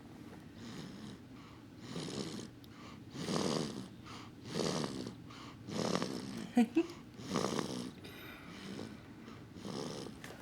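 A 4-week-old baby snoring in his sleep: quick, rhythmic snoring breaths, one about every second and a quarter. Two brief, louder squeaks come a little past the middle.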